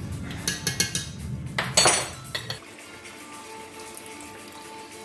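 A metal spoon clinking and scraping against a glass jar of minced garlic and the rim of an enamelled pot: a quick run of clinks, with the loudest scrape about two seconds in. After that only background music with steady held notes.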